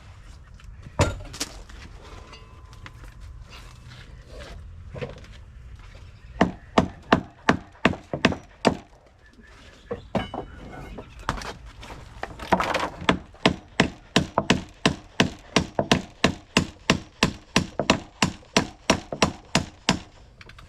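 A hammer striking wood in steady runs of blows, about three a second: one blow, then a short run, then a long one, as old deck boards and framing are knocked apart.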